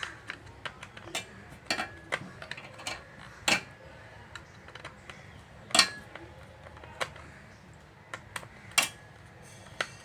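Scattered clicks and taps of a screwdriver working the small screws out of a microwave oven's circuit board and plastic control panel. Sharper knocks come about three and a half, six and nine seconds in.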